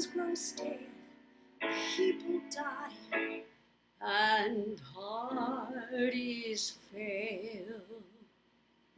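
A woman singing a slow torch song solo, in several phrases with short pauses between them, her held notes wavering with vibrato.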